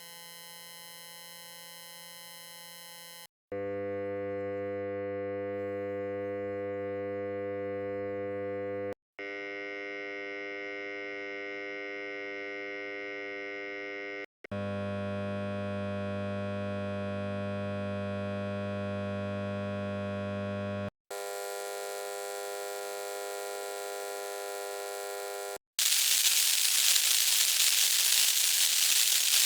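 A string of short electrical buzz and hum sound effects played back to back, each cut off abruptly: five steady pitched hums of a few seconds each, then a louder, hissy buzz near the end.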